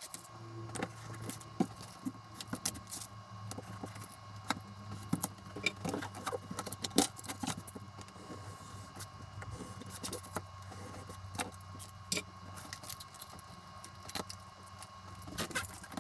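Irregular crackles and clicks of double-sided tape being handled, peeled from its backing and pressed onto a carbon fibre sheet, over a steady low hum.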